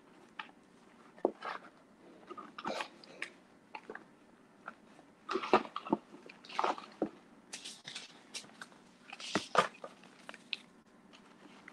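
Paper seed packets rustling and knocking together as hands shuffle through them in a cardboard box, with irregular sharp clicks, loudest from about halfway through.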